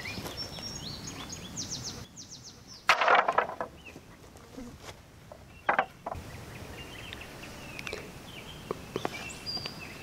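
Thin wooden stickers (narrow sawn sticks) clattering against one another as they are handled and laid across a stack, with two louder clacks about three and six seconds in and lighter taps later. Birds chirp in the background.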